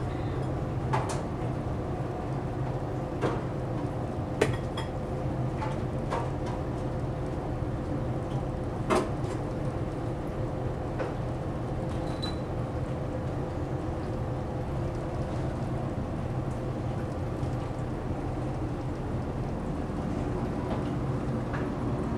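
Steady low drone inside a large car ferry under way, the hum of the ship's machinery, with a few scattered clicks and knocks on top, the sharpest about four and a half and nine seconds in.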